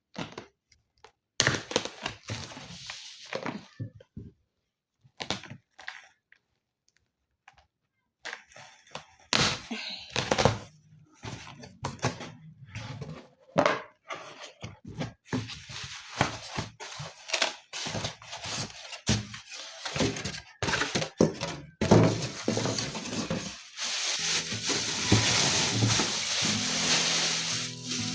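Cardboard packaging being worked open by hand: irregular knocks, scrapes and tearing, with short pauses early on and a longer stretch of steady rustling and tearing near the end.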